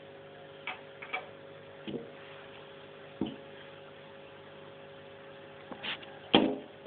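Laptop cooling pad's fans running with a steady hum, with scattered clicks and knocks over it and the loudest knock near the end.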